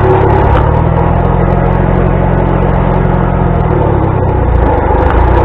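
Old tractor engine running steadily at an even speed.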